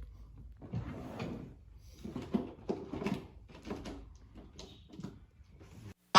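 Irregular handling noises from working on an old wooden chair: about ten soft scrapes and knocks, uneven in spacing, cut off abruptly near the end.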